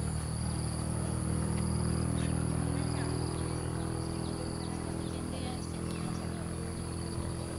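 Insects droning in a steady high-pitched tone over a steady low hum, with a few faint short chirps.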